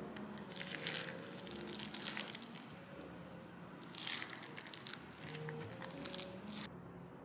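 A silicone spatula folding thick chocolate cookie dough packed with chocolate chips and macadamia nuts in a glass mixing bowl: sticky squishing and scraping strokes in several uneven bursts, the longest run near the end.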